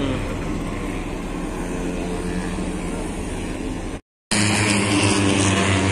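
Steady hum of vehicle engines running, with outdoor noise around it. It cuts out briefly a little after four seconds in and comes back louder.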